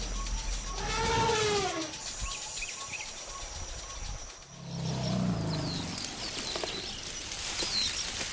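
Elephant calls: a high call about a second in that falls in pitch, then a lower call around five seconds in, with faint bird chirps in between.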